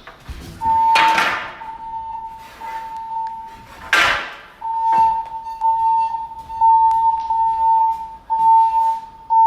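Fire alarm voice-evacuation speaker sounding its steady high alert tone, in segments of about a second with brief breaks; this is the tone that alternates with the recorded evacuation message. Two loud, sudden noises with short ringing tails cut in about one and four seconds in.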